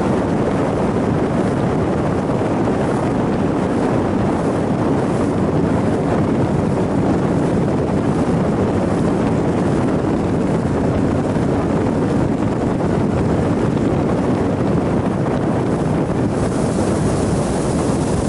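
A 90 hp outboard motor runs steadily at speed, pushing a small motorboat, mixed with wind buffeting the microphone and water rushing past the hull. The hiss grows louder near the end.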